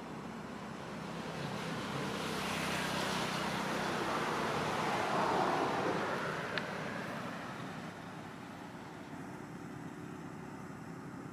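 A road vehicle passing by: a broad noise that swells to a peak about five seconds in and then fades away, with a single short click shortly after the peak.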